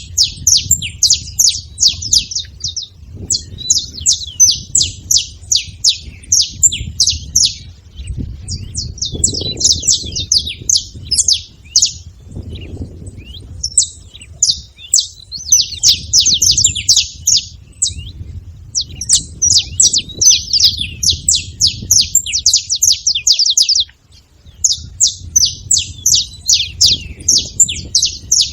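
Saffron finch singing: long phrases of rapid, high chirps, broken by short pauses.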